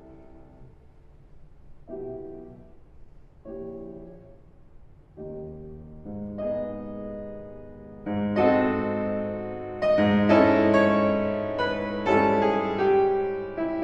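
Background piano music: soft, widely spaced chords that grow fuller and louder from about eight seconds in.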